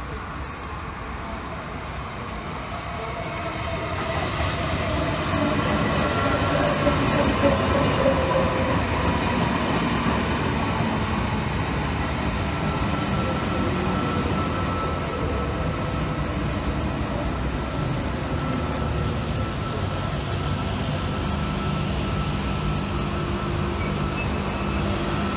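Double-deck electric passenger train approaching and running past, growing louder over the first six seconds with a whine that falls in pitch as it nears. Then the carriages rumble along the rails with a steady high whine.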